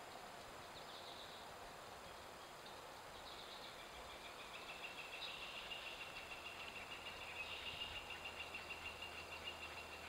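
Faint outdoor background with a bird calling in the distance: from about four seconds in, a thin high note repeats in a steady series, about four pulses a second toward the end.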